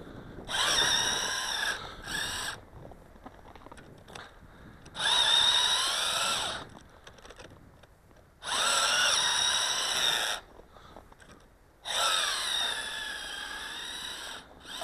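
Toy RC snowmobile's small electric drive motor whining in four separate bursts of throttle, each about two seconds long, the pitch rising and sagging within each burst. The track is spinning and digging into powdery snow rather than driving the sled forward.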